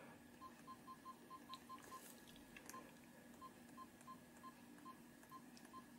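Canon PowerShot G15's menu beeps as its buttons and control dial step through the menu: short, faint, high single-tone beeps, a quick run of about eight in the first two seconds, then spaced out, each one marking a step down the menu list.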